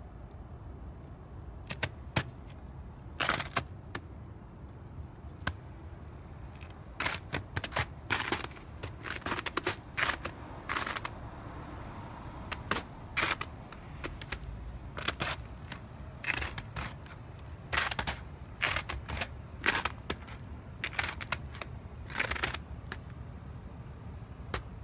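Crunchy footsteps in snow: short, irregular crunches in bunches, over a steady low rumble.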